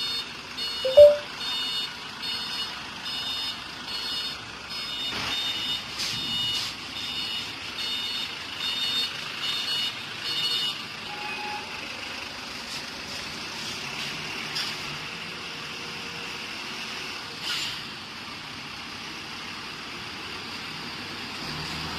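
Diesel generator set running with a steady drone. An electronic beep repeats about every three-quarters of a second for the first ten seconds, and a sharp click about a second in is the loudest sound.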